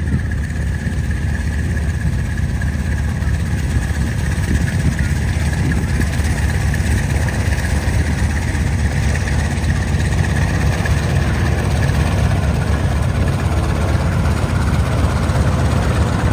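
Piston aircraft engines of a formation flying past: the Lockheed 12A Electra Junior's twin radials with a Spitfire PR.XI's Merlin. It is a steady, loud drone that swells a little over the first few seconds.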